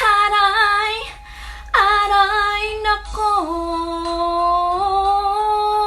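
A woman singing slow, long held notes: two short phrases, then one note held about four seconds with a slight dip in pitch.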